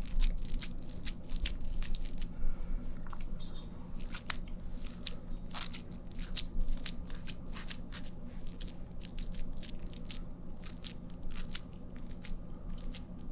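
Wet hands squeezing and pressing minced beef along a skewer for kabob koobideh: irregular soft wet smacks and clicks, over a steady low hum.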